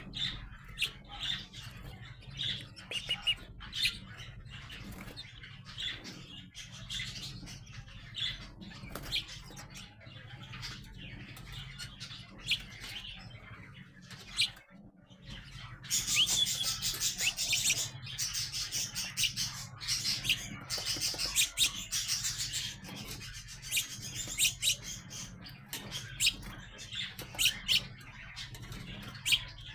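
Young sparrows chirping repeatedly in short calls, breaking into a louder spell of dense, high chirping and chatter from about 16 to 23 seconds in.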